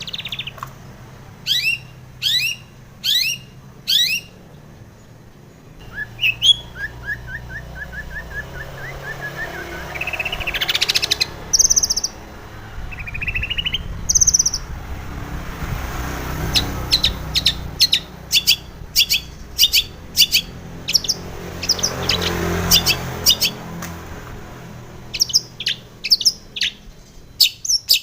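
Long-tailed shrike (cendet) singing: bursts of sharp, down-sweeping chirps, a quick rising trill of short notes, some scratchy calls, and long fast runs of short notes in the second half, over a faint low rumble.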